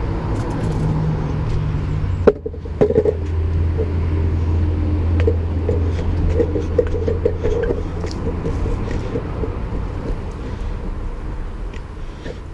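Skateboard wheels rolling over paving stones: a steady low rumble, with a sharp clack about two seconds in and small rattles after it. The rumble fades near the end.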